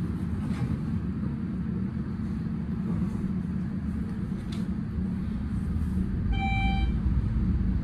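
Schindler-modernized elevator car travelling with a steady low rumble, and about six seconds in a single electronic arrival chime rings for about half a second as the car reaches its floor.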